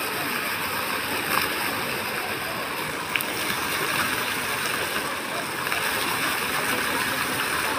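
Water-fountain jets spraying up and splashing back into the pool, a steady rushing sound.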